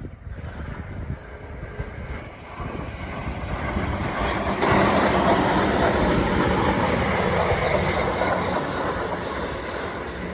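Train running on the rails, growing louder over the first few seconds and at its loudest from about halfway through, with a steady low hum under the rumble and clatter of the wheels.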